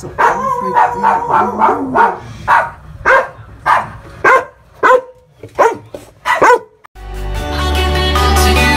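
A dog barking over and over, about one to two barks a second. About seven seconds in the barking stops and music with a heavy bass line starts.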